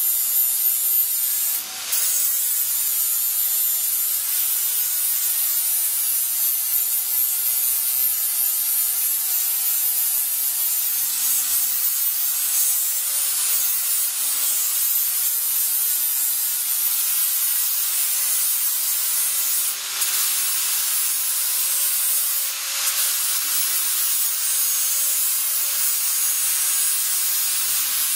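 Electric angle grinder with an abrasive disc grinding along the cut edge of a sheet-steel panel: a steady high-pitched whine over a grinding hiss, with a few brief dips where the disc comes off the metal.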